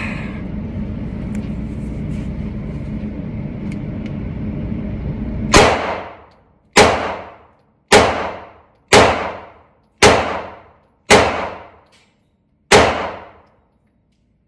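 FMK 9C1 9mm pistol fired seven times, about one shot a second with a slightly longer pause before the last, each shot echoing off the indoor range. These are the last seven rounds of the box. A steady low rumble comes before the first shot.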